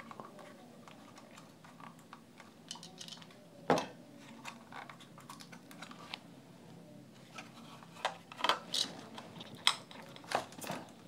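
Light clicks and scrapes of plastic parts being handled as the motherboard of a JBL Charge 3 speaker is slid out of its plastic housing. There is a sharper click about four seconds in and a run of clicks near the end.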